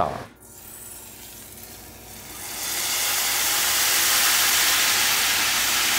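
Hot oil sizzling as homemade chili oil is made. The sizzle is faint at first, swells over about a second from around two seconds in, and then holds steady and loud.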